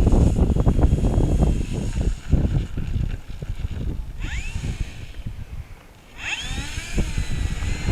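Wind buffeting the microphone, then the E-flite Turbo Timber's electric motor and propeller whining up in pitch twice, about four seconds in and again just after six seconds, as the throttle is opened.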